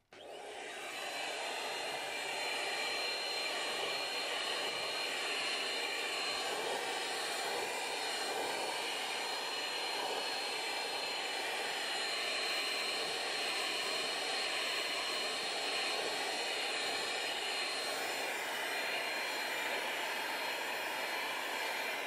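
Small handheld vacuum cleaner switched on, its motor spinning up within the first second and then running steadily with a high whine, used to suck loose shedding fur off a cat's coat.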